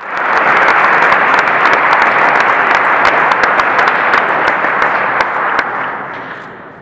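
Audience applauding, a dense wash of many individual claps that fades away near the end.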